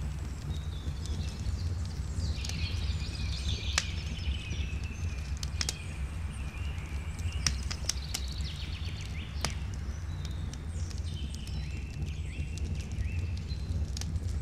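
Open wood fire crackling, with sharp pops every couple of seconds, while birds sing on and off. A steady low rumble runs underneath.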